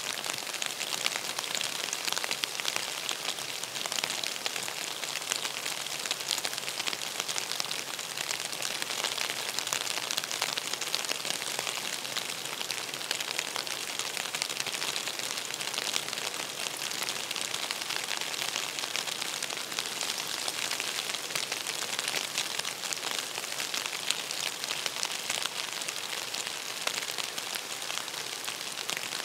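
Steady rain falling on the sea: an even hiss of many small drops hitting the water, unchanging throughout.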